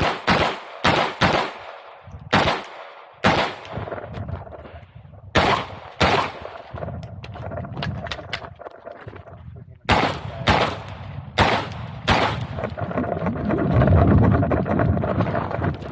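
Glock pistol fired rapidly in an IPSC stage: about a dozen sharp shots in quick pairs and small strings, with pauses of a few seconds between groups. A low rumble swells briefly near the end.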